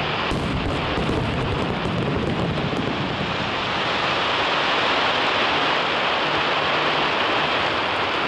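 Aerial fireworks: low booms of bursting shells in the first few seconds, then a dense crackling hiss of many tiny pops that swells to its loudest about halfway through.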